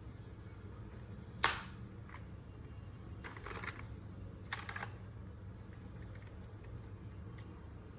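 Keys being pressed on an EvoFox Katana X2 mechanical keyboard with red switches: one sharp, loud keystroke about one and a half seconds in, two short runs of clacking keystrokes in the middle, and faint light key taps in between.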